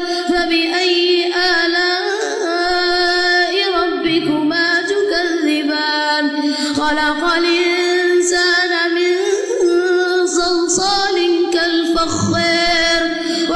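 A solo voice in melodic Quran recitation, drawing out long, ornamented notes that waver and slide in pitch, with only brief breaks between phrases.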